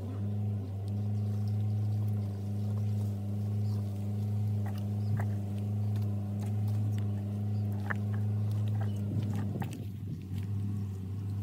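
A steady low hum, with scattered short clicks and smacks of someone eating.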